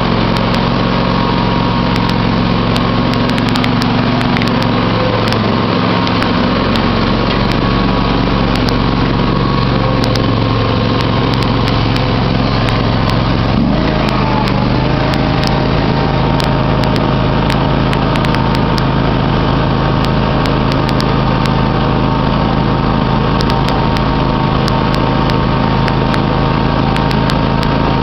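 John Deere X500 Multi-Terrain riding mower's 25 HP engine running steadily as the mower is driven along, its note shifting slightly about halfway through.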